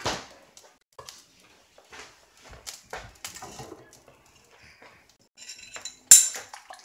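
Scattered kitchen handling sounds: soft clicks and knocks of dishes and utensils, with a sharp clink about six seconds in as the bowl of egg is brought over the pan.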